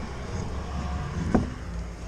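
A single sharp metallic knock about a second and a half in, from the wheel being refitted onto the car's hub, over a steady low rumble.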